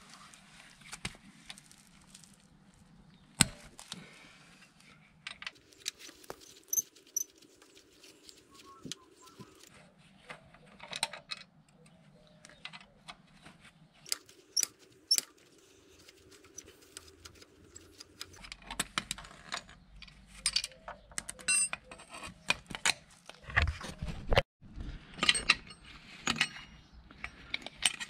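Irregular metallic clicks and clinks of a hex key working the footrest-bracket bolts on a Suzuki SV650 motorcycle, with the loose bracket and tools handled. The clinks come thicker and louder in the last third.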